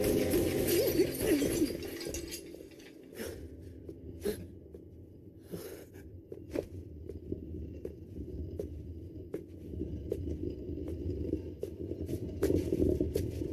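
Sound effects from an animated fight scene: a fiery blast in the first second or so fades into a low rumble, with scattered sharp clicks and knocks over it.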